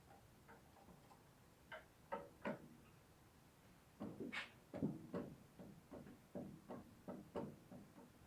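Irregular metallic clinks and taps of hand tools and engine parts being handled during engine disassembly, a scattered few at first, then a quicker run of knocks through the second half.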